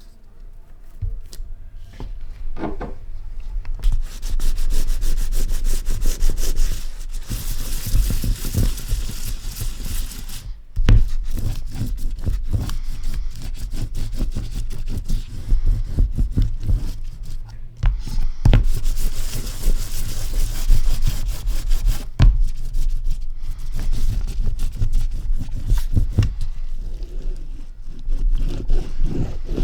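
Rapid, repeated rubbing and scraping strokes of a hand tool worked against a linocut block, with stretches of harsher hiss.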